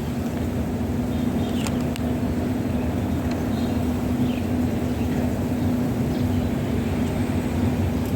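Steady low mechanical drone with one constant hum, with a few faint, short high chirps over it.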